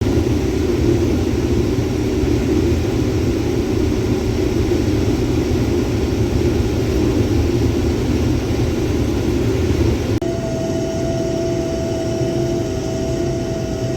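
Combine harvester running steadily while shelling corn, a loud low engine-and-threshing drone. About ten seconds in the sound shifts abruptly and a steady high whine joins it.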